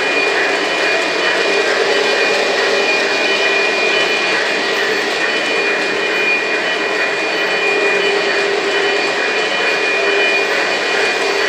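Lionel O gauge electric model trains running on the layout: a steady whir of motors and wheels on the track, with a steady high whine.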